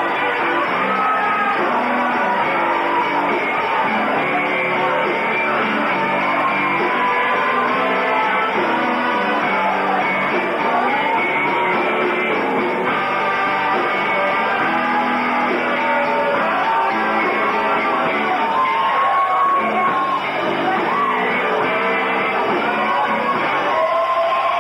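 Live rock band playing with a singer, recorded on an old VHS tape that leaves it dull, with the high end cut off.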